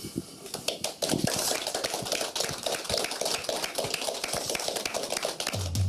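Studio audience clapping, a dense patter of many hands. Near the end the band's music comes in with low sustained notes.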